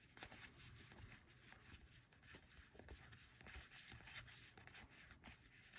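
Faint, irregular soft ticks and rubs of Magic: The Gathering cards being slid past one another in the hand while fanning through a pack.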